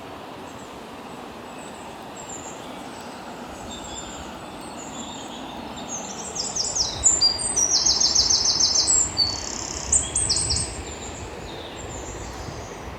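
Steady rush of falling water from a waterfall. A bird sings rapid, trilled high phrases from about six seconds in until about eleven.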